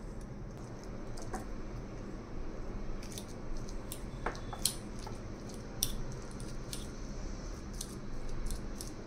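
A metal spoon mashing a boiled, peeled potato in a glass bowl, with scattered light clicks as the spoon knocks against the glass, starting about three seconds in.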